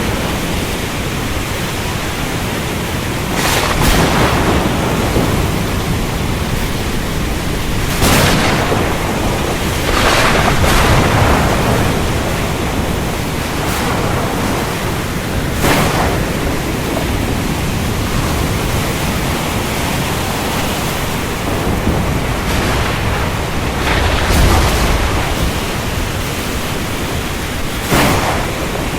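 Thunderstorm: steady heavy rain with sharp thunder cracks about half a dozen times, and a deeper rolling rumble of thunder about two-thirds of the way through.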